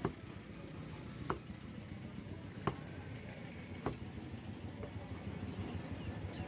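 Butcher's cleaver chopping beef on a wooden log block: four sharp chops about a second and a quarter apart, then a lighter one about five seconds in. A steady low background rumble runs underneath.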